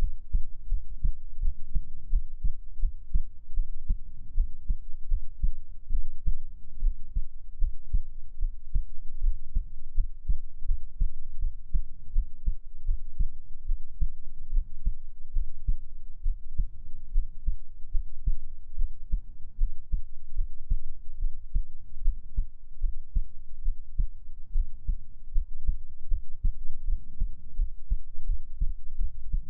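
Human heartbeat, a steady run of low, dull thumps in an even rhythm.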